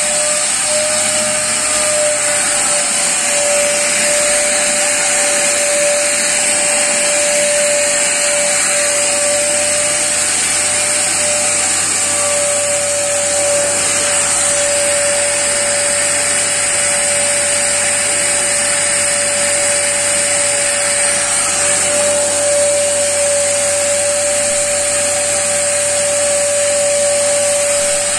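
Catalytic converter cleaning machine running steadily: a constant whirring hiss with a steady mid-pitched whine over it, unbroken throughout.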